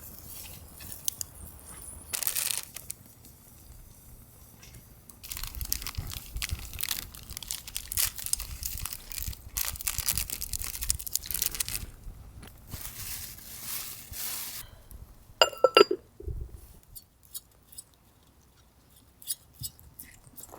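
Rustling and crinkling handling noises in long runs, with a brief loud pitched squeak or ring about three-quarters of the way through, followed by a few small clicks.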